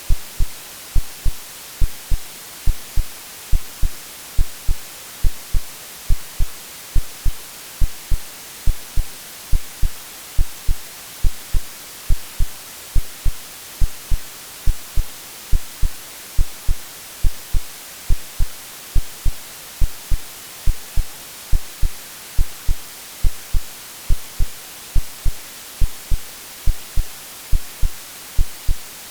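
Steady white-noise hiss with a synthesized heartbeat underneath: soft low lub-dub double thumps repeating at an even, calm pace, mimicking the womb sound a baby hears before birth.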